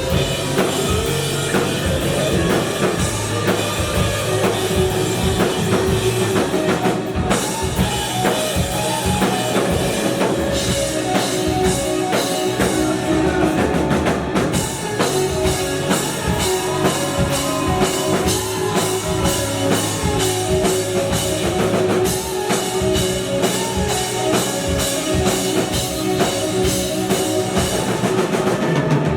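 Rock band playing live, with a steadily pounding drum kit and guitars.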